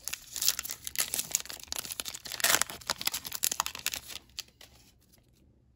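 A Topps Heritage baseball card pack wrapper being torn open and crinkled by hand, a dense crackle loudest about halfway through. It dies away after about four seconds.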